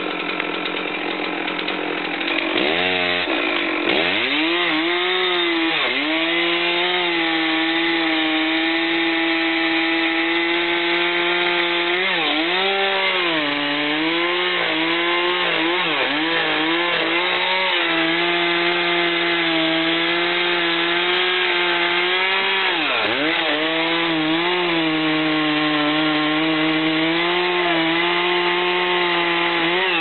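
Large chainsaw cutting into the base of a giant tree at full throttle, revving up about three seconds in. Its pitch dips and recovers several times as the chain loads in the wood.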